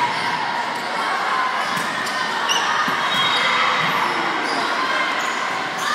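Echoing gymnasium din during a volleyball rally: the thuds of volleyballs being struck and bouncing on the hardwood court over a steady mix of many voices from players and spectators.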